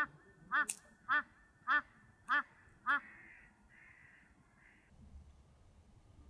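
Black woodpecker calling: a run of six short, evenly spaced calls, a little under two a second, that stop about three seconds in. A single sharp click comes with the second call.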